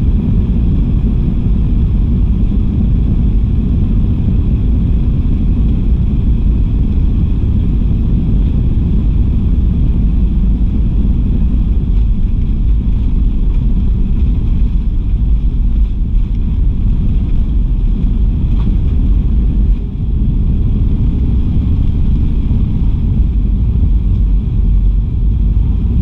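Airbus A319 jet engines at takeoff thrust, heard inside the cabin, with a steady deep rumble from the wheels rolling along the runway through the takeoff roll and into lift-off. A faint high steady whine from the engines sits over the rumble.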